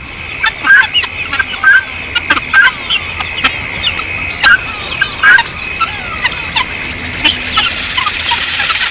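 A flock of guinea fowl giving sharp, clucking alarm calls, many short calls in an irregular chatter over a steady high-pitched hum; the birds are alarmed by a stalking predator.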